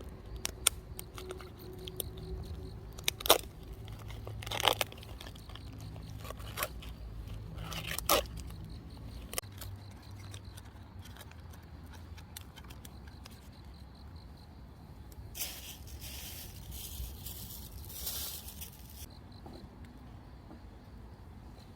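Objects being handled at close range: scattered sharp clicks and knocks, three of them louder, then a few seconds of rustling near the end.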